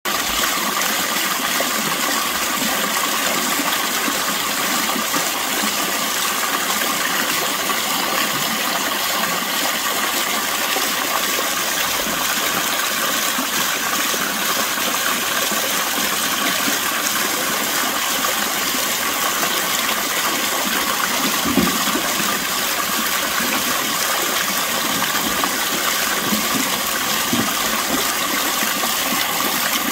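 Water from an artesian spring pouring down over rock, a steady rushing splash with no break. A soft low thump sounds once about two-thirds of the way through.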